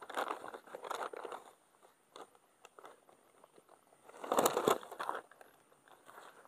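Close rustling and crunching handling noise in irregular clusters, loudest about four seconds in: an angler handling gear and a freshly landed fish on the grass.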